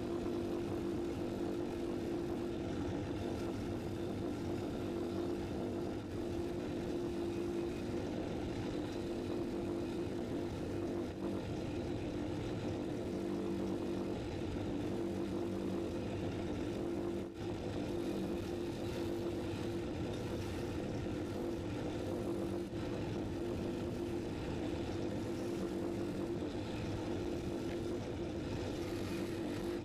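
Bench grinder motor running at a steady speed with a constant hum, its spinning wheel working small steel scooter parts (a threaded rod and nuts) held against it.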